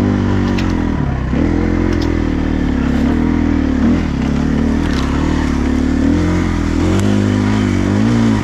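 Dirt bike engine running under load at low speed, its revs rising and falling every second or two as the throttle is worked, with a few sharp clicks over it.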